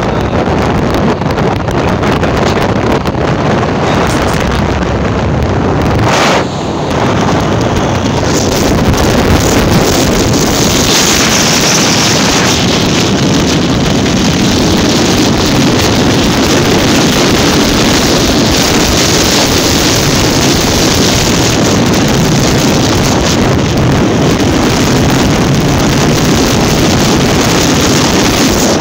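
Loud wind buffeting the microphone while riding an open motorcycle along a road, with the engine and tyre noise running underneath. The noise drops briefly about six seconds in.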